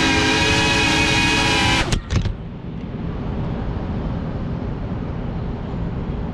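FPV quadcopter's motors and propellers whining at a steady pitch, then cutting off abruptly about two seconds in with a couple of sharp knocks as the drone crashes onto the pavement. After that only a low steady rumble remains.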